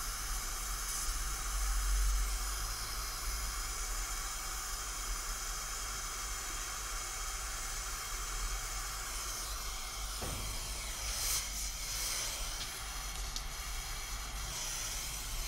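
Gas brazing torch flame hissing steadily while it heats an aluminium-to-copper refrigerant tube joint.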